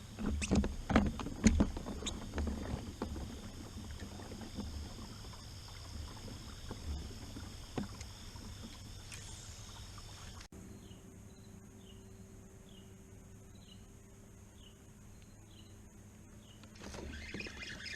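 Knocks and low bumps of gear being handled against a plastic pedal kayak's hull, with water movement around it. After a sudden cut it goes quieter and a run of short high chirps repeats about one to two times a second, before the knocking and water noise pick up again near the end.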